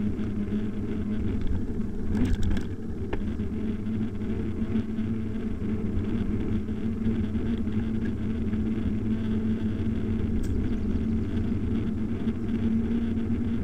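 Steady low rumble of a mountain bike's tyres on asphalt and wind past a camera mounted on the bike, with a steady hum and a brief rattle about two seconds in.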